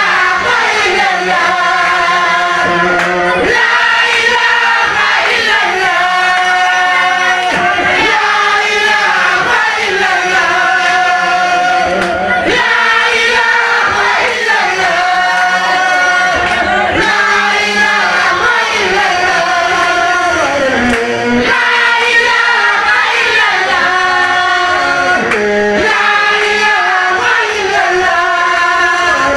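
Male chant group singing a religious chant: a lead singer on a headset microphone with a chorus of young men singing together through a sound system, loud and unbroken.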